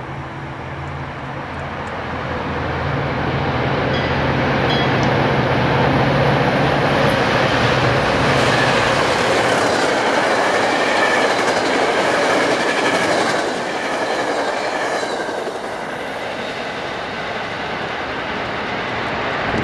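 An MBTA commuter train passes at speed behind an F40PH diesel locomotive. The locomotive's low engine drone is heard for about the first eight seconds. Then the coaches go by in a loud, steady rush of wheel-on-rail noise that eases off as the train pulls away.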